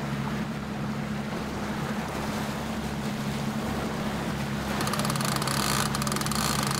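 Suzuki 250 four-stroke outboard running steadily at trolling speed, with the wash of the wake. About five seconds in, a rapid fine clicking joins: a fishing reel's ratchet as line is let out.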